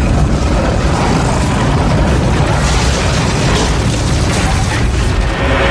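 Loud, sustained rumbling boom sound effect with heavy bass, the audio of an animated logo sting. It starts abruptly out of silence and holds steady throughout.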